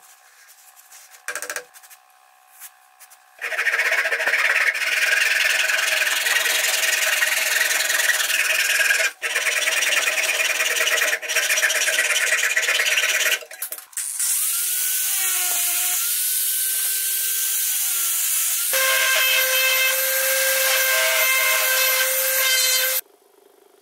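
Woodworking power tools running and working wood in several stretches. There is loud, noisy cutting with a couple of short breaks, then a motor whine that wavers up and down in pitch, then a steady motor tone that cuts off suddenly near the end.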